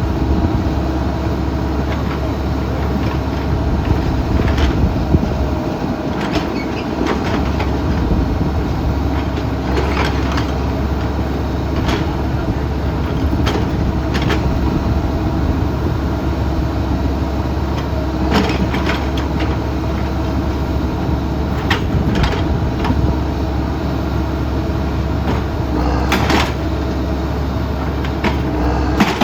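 Excavators' diesel engines running steadily under work, with sharp metallic knocks every few seconds from the machines.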